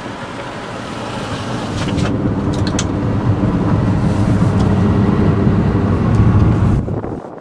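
Cab noise of a 2008 Chevy Silverado 3500 with a 6.0-litre gas V8, cruising at about 50 mph: a steady low engine and road rumble. It grows louder about two seconds in and drops away just before the end, with a few light clicks around two to three seconds.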